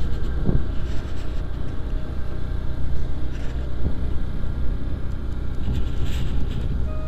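Motorcycle engine running steadily while riding at road speed, with wind rushing over the bike-mounted microphone and a steady low rumble.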